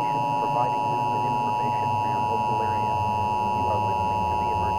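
Emergency Alert System two-tone attention signal: a steady, loud dual tone of about 853 and 960 Hz sounding together without a break.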